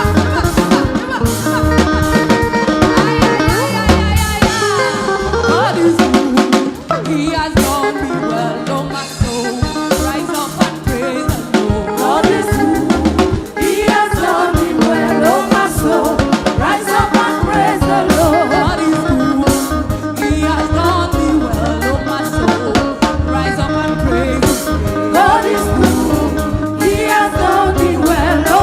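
Gospel praise music: a drum kit keeps a steady beat with snare and bass drum under the band, with singing over it.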